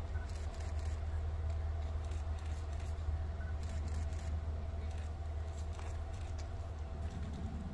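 A train running with a steady low rumble and a faint steady hum above it.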